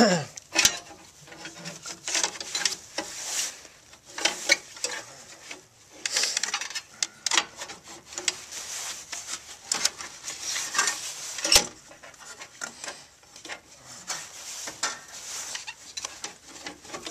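Hand-fitting noise of a waterer's valve assembly and metal plate being slid down into place: irregular scraping, rubbing and clicking of parts, with one sharp knock about two-thirds of the way through.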